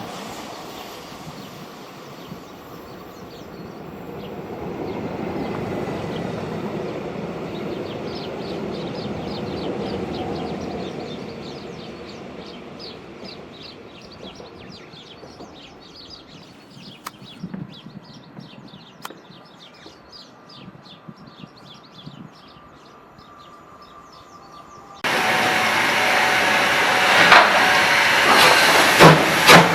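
Trains in a railway freight yard: a passing train's rumble swells and fades over the first dozen seconds, then quieter yard sound with rapid faint high chirps. About 25 s in, loud close train noise starts abruptly, with regular wheel clacks over rail joints, about two a second, near the end.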